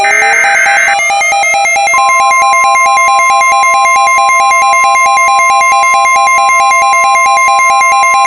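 Synthesized emergency alert tones. A SAME header data screech fills the first second, over a fast-pulsing alternating tone and siren-like tones that have glided up to a steady pitch. About two seconds in, a steady tone near 1 kHz joins: the NOAA Weather Radio warning alarm tone that comes before a warning message.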